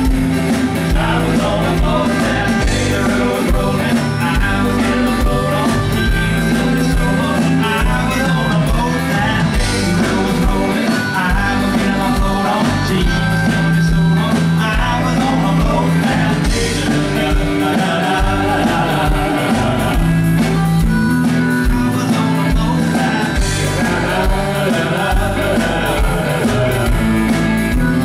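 A live band playing a country-rock song with acoustic and electric guitars, bass guitar and drums, with a saxophone playing lead.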